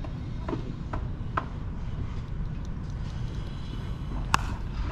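A few short, sharp knocks over a steady low rumble, the loudest and sharpest one near the end.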